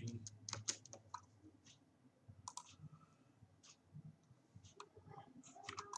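Faint, irregular clicks of a computer mouse and keyboard as values are entered and confirmed in CAD software.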